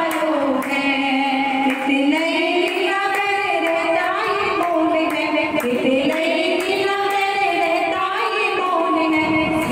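Women's voices singing a Hindu devotional song (bhajan), the melody held in long notes that glide up and down.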